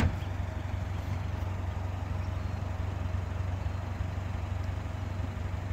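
Peugeot 208 GTi's 1.6-litre turbo four-cylinder idling steadily through a custom exhaust with the rear silencer (back box) deleted, a low even drone. A car door shuts with a sharp thud right at the start.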